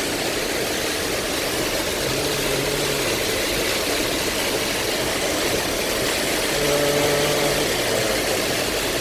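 Heavy rain on a car body and windscreen, heard from inside the cabin as a steady, dense hiss over the car's running engine.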